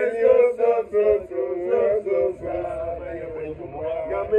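Men's voices singing a chant-like song with long held notes.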